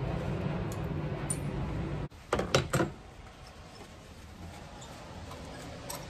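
A steady low hum stops abruptly about two seconds in. A few sharp clicks and knocks follow, as metal hand tools and a spark plug are handled in the engine bay.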